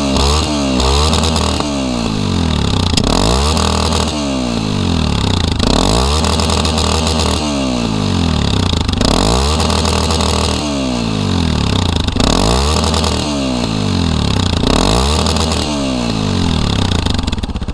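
Yamaha Tricker's single-cylinder four-stroke engine, revved up and back down over and over while standing: quick short blips at first, then longer revs every second or two. The revs climb without the engine cutting out. The rider thinks the top of each rev is the rev limiter.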